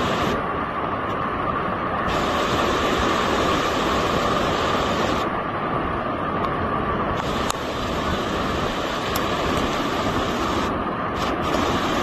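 Muddy floodwater rushing across a road, a steady loud rush of water.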